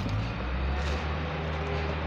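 A low, steady engine drone, like an idling vehicle or machine, starting right at the beginning over a background hiss.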